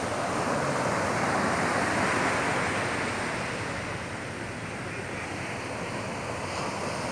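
Surf breaking and washing up a sandy beach: a steady rushing wash that swells to its loudest about two seconds in, then eases off.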